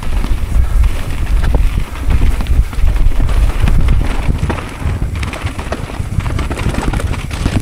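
Mountain bike ridden fast down a rough trail: continual rattling and knocking of the bike over bumps, over a steady low wind rumble on the microphone.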